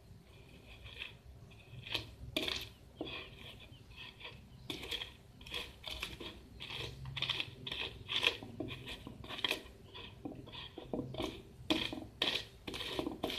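Pestle grinding and crushing peanuts and chilies in a cobek mortar to make rujak spice paste: irregular knocks and scraping strokes, about one or two a second.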